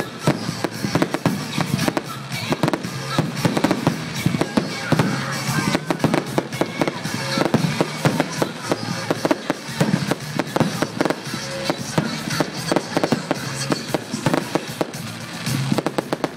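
Fireworks display firing a continuous, rapid volley of bangs and crackles, with music playing underneath.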